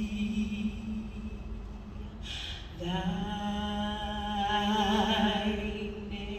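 A woman singing solo into a microphone: a held note fades in the first second, a short breath follows about two seconds in, then a long sustained note with vibrato from about three seconds in.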